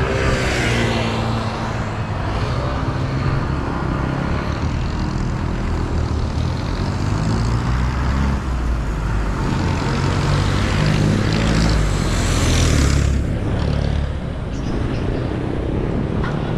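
Road traffic: motor vehicle engines running and passing, with one vehicle passing close and loudest about twelve seconds in.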